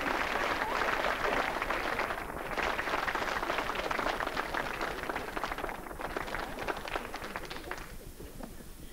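Studio audience applauding, a dense patter of clapping that dies down near the end.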